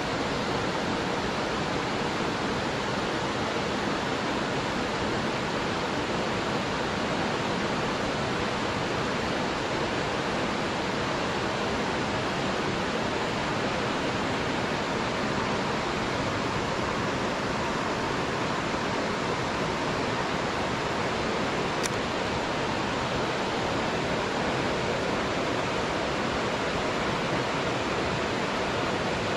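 Steady rushing of water, an even hiss that does not change.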